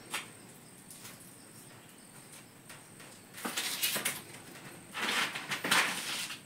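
Rustling and scraping of spiky, leafy pineapple crowns brushing against a woven basket as pineapples are pushed into it, in two bursts about a second long, the second one louder.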